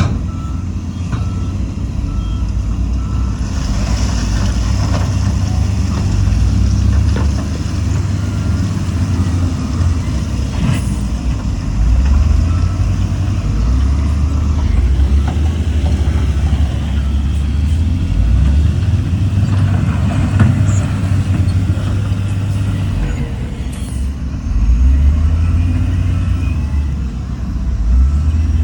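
Heavy diesel earthmoving machines, a bulldozer and dump trucks, working under load, the engine rumble swelling and easing several times. A reversing alarm beeps at times.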